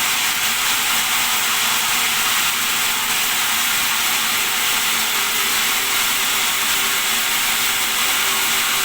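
Bandsaw running steadily: an even hiss with a faint hum underneath.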